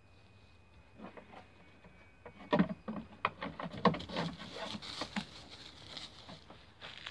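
Ouessant sheep's hooves knocking and scuffing on a wooden table top as it shifts about, an irregular run of taps and knocks. They start about a second in and are loudest a little past two and a half seconds and near four seconds.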